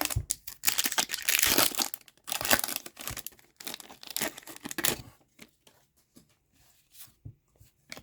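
A hockey card pack's wrapper being torn open and crinkled: dense rustling tears for about the first five seconds, then only a few light, scattered ticks.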